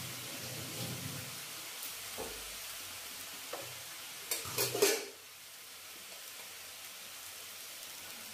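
Chopped spinach sizzling in a hot wok, a steady frying hiss with the odd faint tick. Just past the middle comes a brief cluster of loud knocks, and after it the sizzle is a little quieter.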